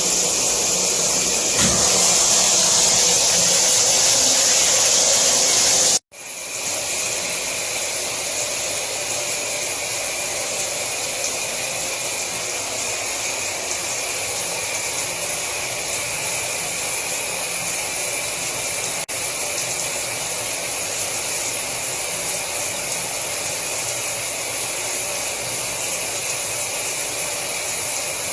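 Shower water spraying steadily. About six seconds in the sound drops out for an instant and resumes a little quieter.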